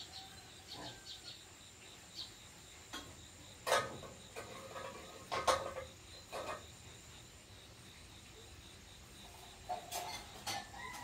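Insects chirring faintly and steadily, with a few sharp knocks and clacks, the loudest about four and five and a half seconds in and a cluster near the end.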